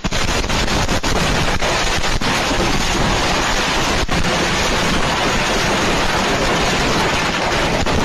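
Fireworks going off: a loud, steady rushing hiss with a few sharp pops in the first couple of seconds and one more about four seconds in.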